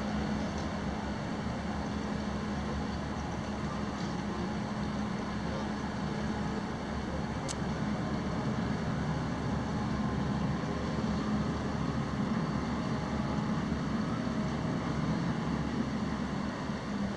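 Steady low drone and rumble of a cruise ship's machinery, a constant hum under a wash of noise, with one faint tick about halfway through.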